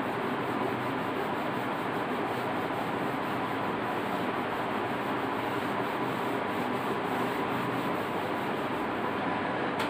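Whiteboard eraser rubbing across a whiteboard, wiping marker writing off the board, heard as a steady scrubbing hiss.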